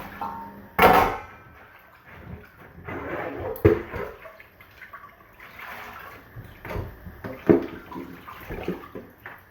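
Dishes being washed by hand at a sink: water splashing and running, with plates and utensils knocking against each other a few times, most sharply about a second in.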